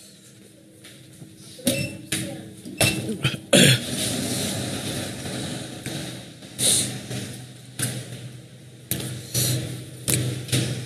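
Kitchen clatter: a series of sharp knocks and thuds over a steady low hum, with a rushing hiss for a couple of seconds about four seconds in.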